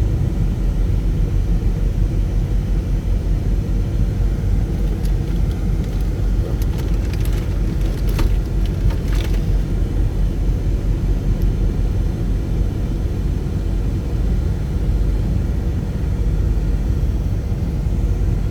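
Car driving: a steady low rumble of engine and road noise, with a few faint clicks about five to nine seconds in.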